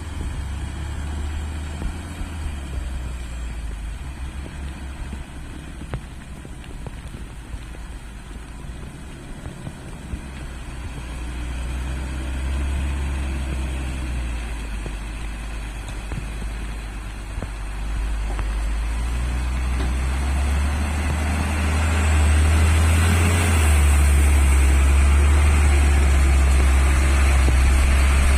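Hino 500 dump truck's diesel engine running with a steady low rumble, growing louder about two-thirds of the way through as it works harder.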